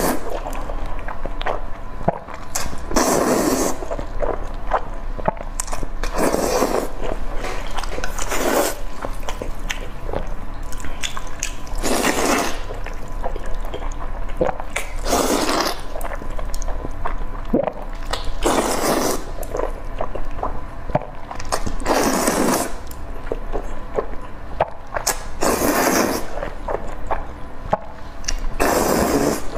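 Close-up slurping of sauce-coated noodles, a loud slurp about every three seconds, with wet chewing and small clicks in between.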